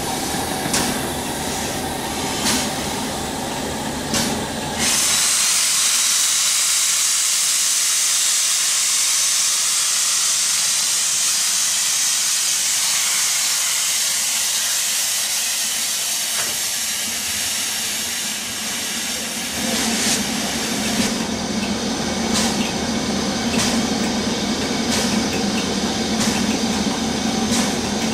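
LMS Royal Scot class 4-6-0 steam locomotive No. 46100 moving slowly with steam escaping at its cylinders, with a few clanks. About five seconds in, a loud, steady steam hiss sets in and lasts some fifteen seconds, then drops back to lighter hissing with scattered clicks.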